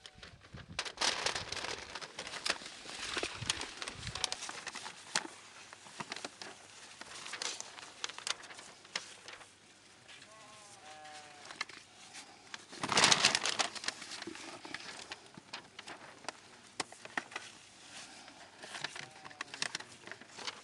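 Rustling and crackling as figs are handled and sorted in plastic crates lined with paper, with a louder rustle about 13 seconds in. Livestock bleat faintly a few times.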